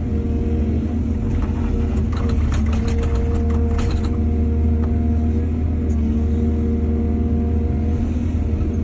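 Heavy diesel engine of an excavator running steadily under load, with a quick run of sharp clanks and rattles about two to four seconds in.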